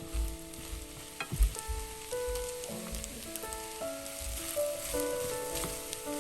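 Food sizzling as it is stir-fried in a frying pan, with irregular knocks of the utensil against the pan, over background music.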